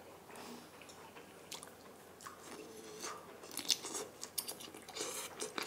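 Close-miked chewing and biting of a shrimp, soft wet mouth sounds and small clicks, faint at first and louder in the second half.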